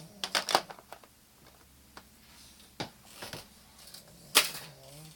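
Plastic toy tools knocking and clacking on a toy tool bench: a handful of irregular sharp knocks, the loudest about four and a half seconds in.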